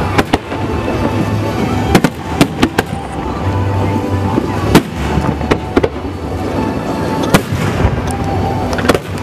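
Aerial fireworks display: shell bursts going off in quick succession, sharp bangs every second or so over a continuous rumble, the loudest about five seconds in.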